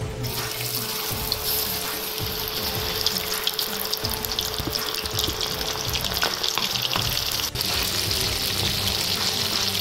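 Batter-coated squid rings deep-frying in hot oil in a wok: a steady sizzle with many small crackles, starting as the first pieces are dropped in.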